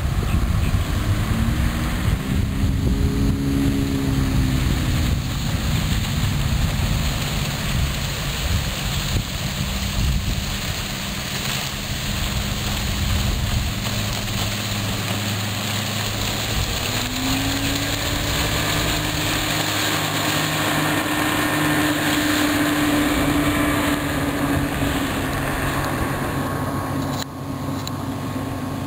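90 hp Johnson two-stroke outboard motor running on a speedboat. Its pitch rises and falls early on, then climbs again and holds steady. Wind buffets the microphone throughout.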